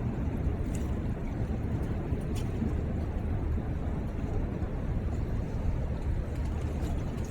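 Steady low rumble of city street traffic, with a few faint brief clicks.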